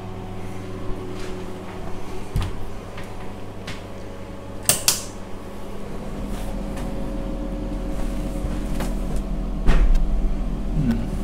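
Cubicle doors and fittings in a shower block being handled: a few sharp clicks and knocks, the loudest near the end, and a brief rattling hiss about halfway through, over a steady hum.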